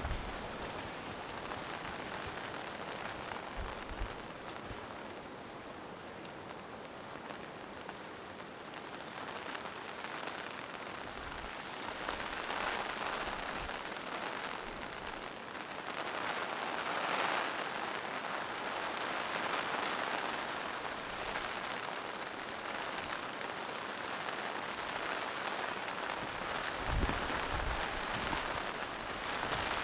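Steady rain falling in a forest, pattering on leaves and rocks, growing heavier about halfway through. There are a few brief low thumps, the strongest near the end.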